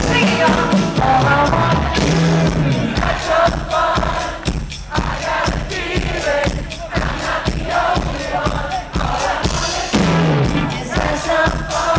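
Live band playing a rock song with a steady drumbeat, voices singing over it.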